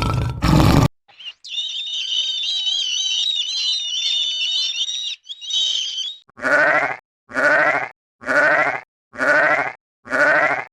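Five bleats in an even row, about one every 0.8 s, from a goat or sheep-like animal. Before them comes a high, wavering warble lasting several seconds. The tail of a deep roar fills the first second.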